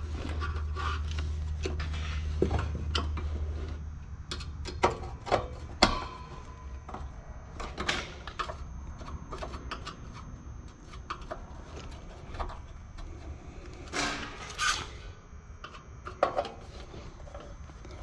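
Scattered clicks and knocks of a hand screwdriver and a metal wall-heater chassis being worked against a wooden frame as screws are loosened to line the heater up. A steady low hum underneath drops away about four seconds in, and two louder scuffs come near the end.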